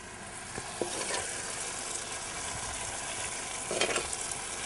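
Onion-tomato masala frying in oil in a clay pot as crumbled steamed millet puttu is stirred in: a steady sizzle, with a wooden spatula scraping against the clay about a second in and again near the end.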